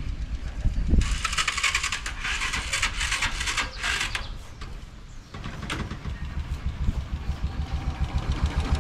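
Motorcycle engine being cranked over in a steady pulsing rhythm without catching, with a rhythmic hiss from about one to five seconds in. It will not start even with spark present and fuel in the cylinder; the cause is clogged carburetor idle and main jets.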